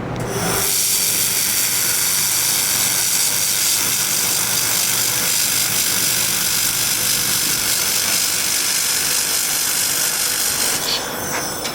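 Laser welding machine running, a steady loud hiss of the weld and its shielding gas over a low hum; the hiss thins out near the end.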